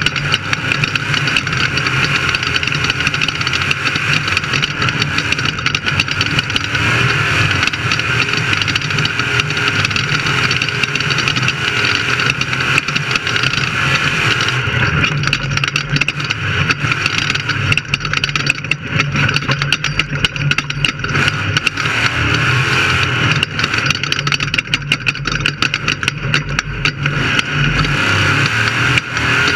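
Off-road race vehicle's engine running steadily under way, with a constant rattle and rushing noise from the rough ride.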